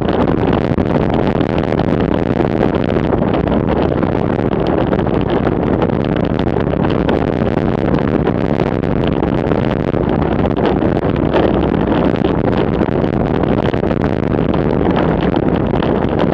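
Loud, steady wind rush over the microphone of a camera mounted on a road bicycle descending at about 35 to 45 km/h.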